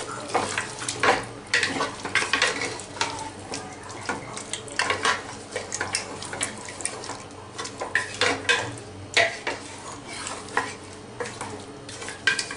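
Wooden spatula stirring marinated mutton in a pressure cooker, knocking and scraping against the pot in an irregular run of several knocks a second, with the masala sizzling in the hot oil.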